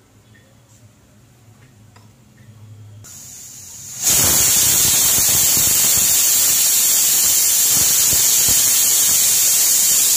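Stovetop pressure cooker on a gas burner letting off its whistle: a hiss of steam builds about three seconds in, then jumps to a loud, steady rush of steam escaping past the weighted valve. The whistle is the sign that the cooker has reached full pressure, counted to time the cooking.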